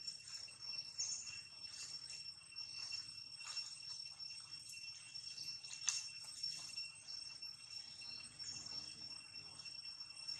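A steady high-pitched insect drone in the background, with faint scattered rustles and clicks and a few brief high chirps; a sharper click about six seconds in.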